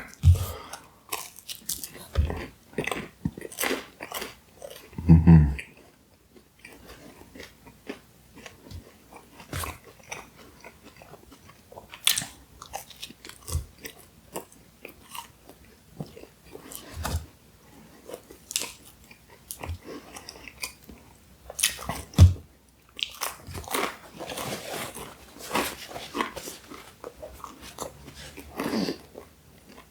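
A person eating close to the microphone: irregular bites and chewing with many short sharp clicks, and a brief low hum about five seconds in.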